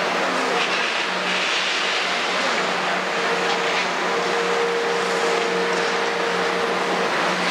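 Kobelco 350 excavator's diesel engine running steadily at a work site, with a steady whine from about three seconds in until near the end.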